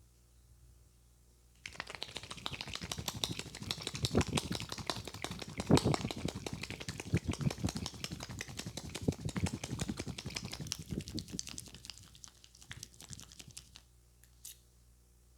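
Hands working rapidly on a head during a head massage: a fast, dense patter of taps and rubbing strokes. It starts abruptly about a second and a half in and dies away about two seconds before the end.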